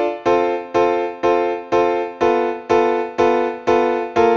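Background music: a keyboard, electric-piano-like, playing repeated struck chords at about two a second, each fading before the next.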